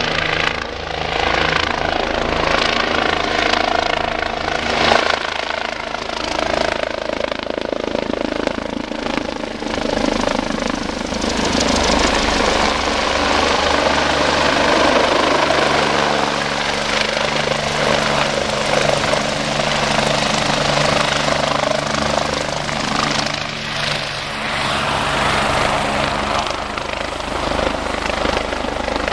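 Several helicopters' turbine engines and rotors running loud and steady, as a red helicopter passes low overhead and a white one comes in to land close by.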